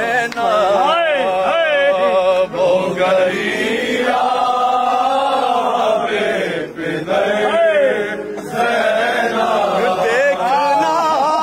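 A man chanting an Urdu soz-o-salam lament in a strong voice, holding long notes that waver and bend up and down.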